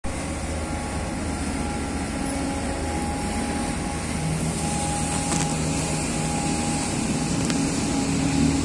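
Motorboat engines running on a busy canal: a steady mechanical drone with several held tones, and a deeper engine note growing louder about halfway through as a boat comes closer.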